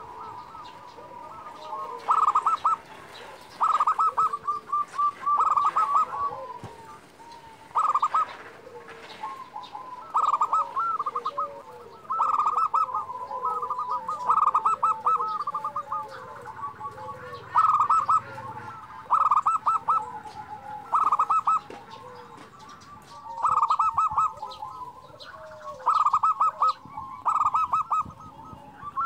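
Zebra dove (perkutut) cooing: bursts of rapid staccato coos repeated every second or two, with softer curving notes between them.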